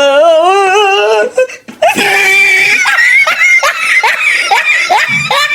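A wavering, drawn-out pitched sound rising for about a second and a half, then a voice laughing in a long run of quick, repeated 'ha ha ha' bursts.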